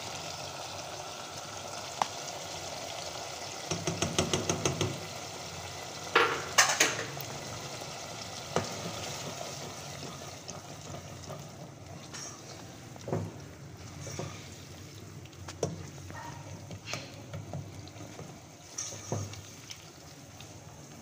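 Minced meat sizzling in a pan as yogurt is stirred in with a spatula, the spatula scraping and knocking against the pan now and then. A quick run of loud taps comes about four seconds in.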